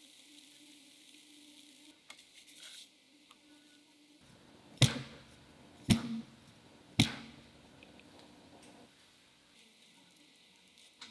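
A 6-inch metal round cake pan full of genoise batter dropped onto the table three times, about a second apart, each a sharp knock that rings away briefly: it knocks the air bubbles out of the batter before baking.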